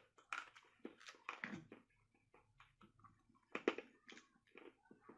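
Frozen chocolate pieces being pushed out of a flexible silicone mold: irregular soft pops and clicks as the pieces come free, with rubbery rustling between them and one sharper snap about three and a half seconds in.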